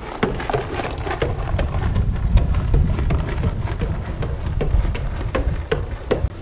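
Wind buffeting the microphone: a steady low rumble, with scattered light clicks throughout.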